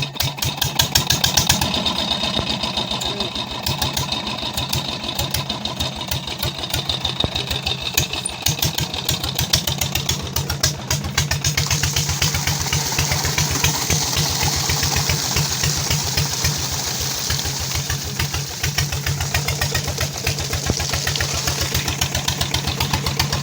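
SD 16 HP Chief diesel engine catching right at the start and then running with an even, rapid beat of firing strokes. A hiss joins in about halfway through.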